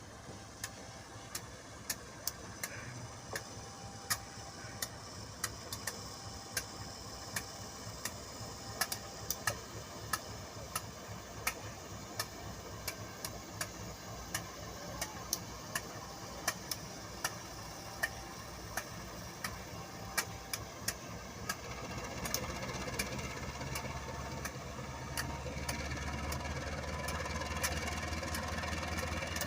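An engine running steadily, growing louder about two-thirds of the way in, with sharp clicks about two a second throughout.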